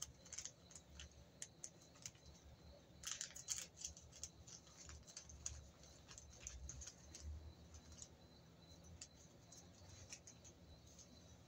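Faint, scattered clicks and light rattling of small screws and light-fixture bracket parts being handled, with a short cluster of clicks about three seconds in.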